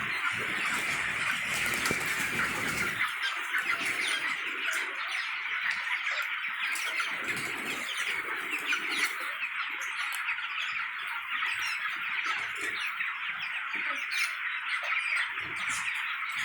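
A large flock of chickens calling all at once, a steady chorus of many overlapping high chirps and squawks.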